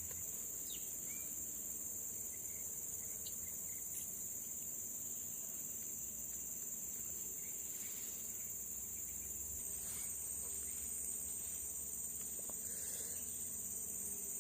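Insects chirring in a steady, high-pitched outdoor chorus, with a second, higher layer joining about ten seconds in.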